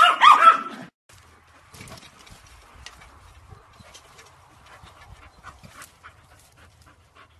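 Small terrier puppies yapping in rapid high-pitched yelps for about a second, then only scattered faint taps over a low hum.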